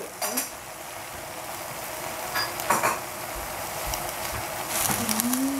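Shredded cabbage and vegetables sizzling steadily in a stainless steel saucepan over a gas burner, slowly getting louder. A few clinks of a utensil against dishes come about halfway through.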